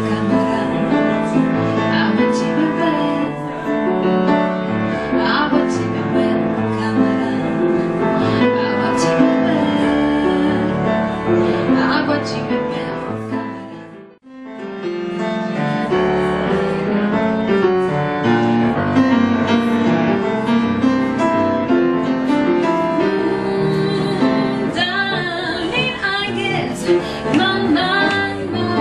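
Piano accompanying a woman singing. About halfway through, the music fades out to near silence and then fades back in; near the end the voice holds wavering notes over the piano.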